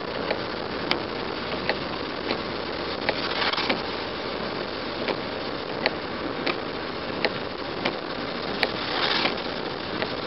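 Car driving on a wet road in rain, heard from inside the cabin: a steady hiss of tyres and engine, with light ticks about every 0.7 s and two brief swishes, about three and a half and nine seconds in.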